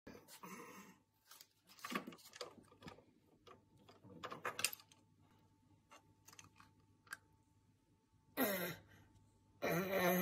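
Light plastic taps and clicks as a baby handles toys on a windowsill, scattered through the first eight seconds. Near the end come two short pitched, voice-like sounds.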